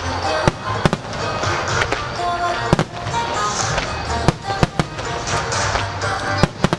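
Aerial fireworks shells bursting in an irregular series of sharp bangs, about a dozen over several seconds, over the show's music.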